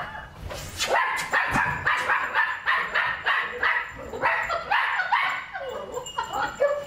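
A tiny puppy yapping over and over in short, high yips, about two or three a second, starting about half a second in.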